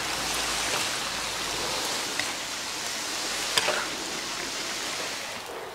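Steady sizzling hiss of hot braised eel and garlic as it is served from the wok, with a couple of light clicks; the hiss fades near the end.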